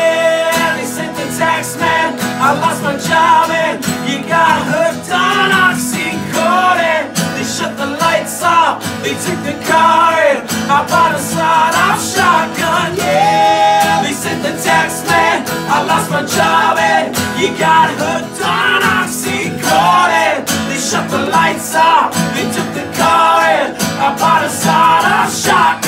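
Two acoustic guitars strummed, with male voices singing over them: a lead singer with the guitarists joining in.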